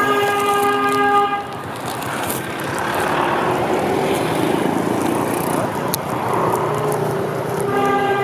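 A vehicle horn honks in one steady tone for just over a second, then honks again briefly near the end. Motorbike and street-traffic noise runs underneath, heard from the back of a moving motorbike.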